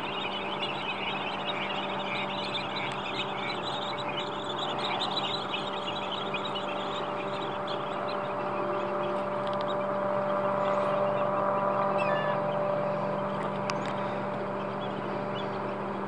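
A steady mechanical hum holding a few fixed tones, a little louder about two-thirds of the way through. Over it, in the first few seconds, a flock of American avocets and dowitchers calls as it comes in to land on the water.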